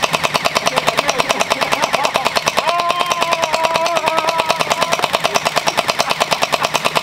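Nerf Pro Gelfire x MrBeast gel ball blaster firing full auto without a break, a fast even rattle of about ten shots a second. In the middle, a drawn-out cry of about two seconds rises over the shots.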